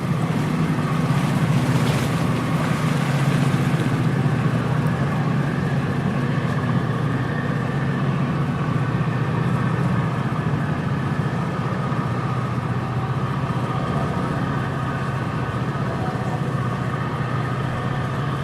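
Ambience beside the River Thames: a steady low engine hum with a few held tones above it, over the even hiss of gently flowing water.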